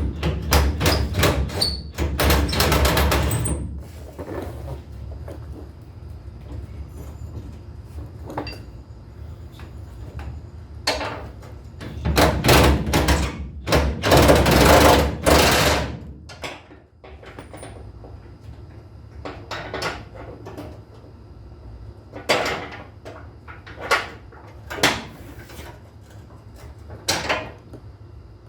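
Hand-and-tool work on a truck: two groups of loud, noisy bursts a few seconds long, one at the start and one around the middle, with scattered knocks and clanks between and after.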